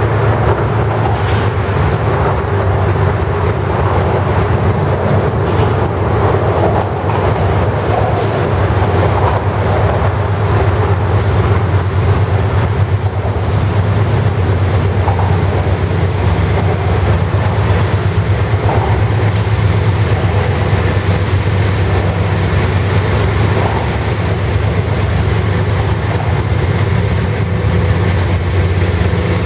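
Diesel locomotives at the head of a CSX freight train approaching and drawing alongside, their engines running with a steady low hum and steel wheels rolling on the rails.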